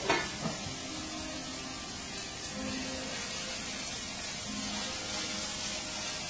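Onions sizzling steadily in a frying pan as they caramelize, with a couple of sharp knocks of the stirring spoon against the pan right at the start.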